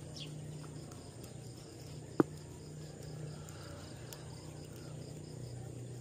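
Insects chirping steadily in a fast, even pulsing rhythm, with one sharp crack about two seconds in.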